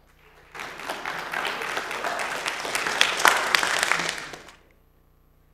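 Audience applauding: many hands clapping, starting about half a second in, building, then dying away a second before the end.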